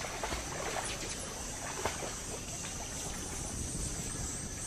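Water trickling and lightly splashing, with a few faint clicks and a steady high-pitched buzz behind it.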